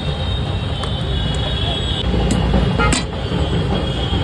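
Street traffic noise: a steady low rumble of passing vehicles with a thin high whine over it, loud enough to cover the chutney being poured and stirred.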